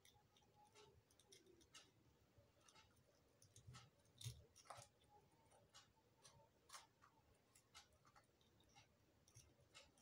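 Near silence with faint, scattered clicks and ticks of hands fitting wires onto a small 12-volt battery's terminals, with one slightly louder knock about four seconds in.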